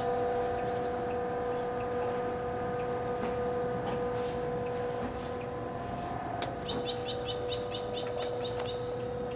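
A bird calling: faint chirps, then a sharp falling note about six seconds in, followed by a quick run of about ten short, evenly spaced notes. A steady low hum runs underneath.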